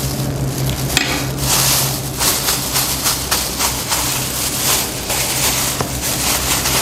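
Plastic bag rustling and crinkling in irregular surges as torn eggplant strips are shaken in it with starch powder to coat them for frying, over a steady low hum.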